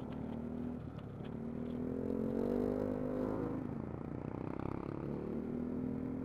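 Single-cylinder scooter engine of a bored-up Yamaha NMAX under way, with the revs climbing over a second or so, easing off about three and a half seconds in, then climbing again and holding steady. Wind and road noise run underneath.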